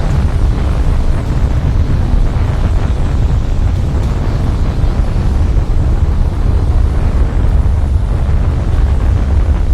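Tornado sound effect: a steady, heavy rush of wind, strongest in a deep low rumble, with no breaks or distinct hits.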